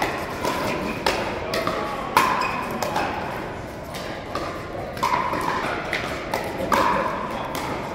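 Pickleball paddles hitting a hard plastic pickleball again and again, sharp hollow pops in quick, irregular succession from several rallies at once, echoing in a large hall.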